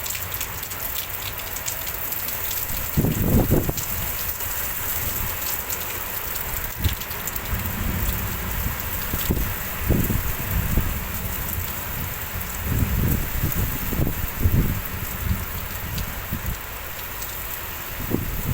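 Heavy rain falling in a windstorm, a steady hiss with sharp drop ticks. Short low rumbles come through about three seconds in and several times between ten and fifteen seconds.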